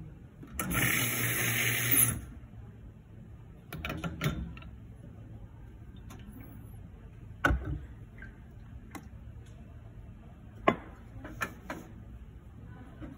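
Espresso machine's pump hums and water hisses for about a second and a half, a short flush of the group head. After it come scattered metal clicks and clunks as the portafilter is handled and locked into the group head, the sharpest click a few seconds before the end.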